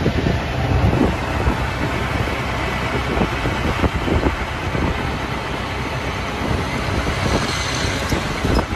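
Auto-rickshaw under way at road speed: its small engine running steadily beneath a steady rush of wind and road noise coming in through the open side.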